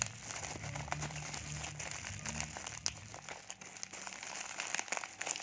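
Bubble wrap crinkling and crackling as it is gripped and squeezed in the hand, a steady stream of small irregular clicks.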